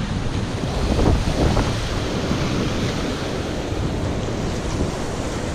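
Wind buffeting the microphone over surf washing against the rocks, a steady rough rush with a couple of swells.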